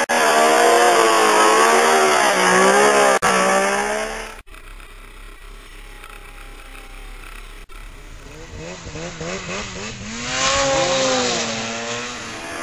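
Snowmobile engines revving hard, pitch rising and falling with the throttle, across several abrupt cuts. A loud stretch at first, then a quieter one after about four seconds, then another sled revving up and down, louder again near the end.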